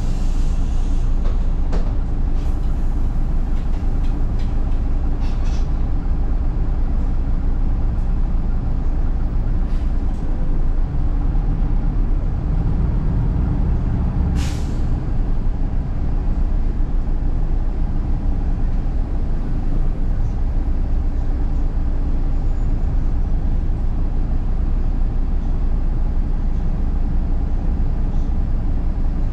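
Steady engine and road rumble inside a city bus, heard from the back seat. About halfway through, the engine note swells briefly, then the air brakes give one short, sharp hiss.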